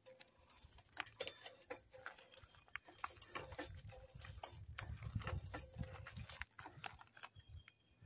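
3-ton hydraulic floor jack being pumped to raise the front of a pickup truck: irregular clicks and knocks from the jack and handle, with a low rumble through the middle of the lift.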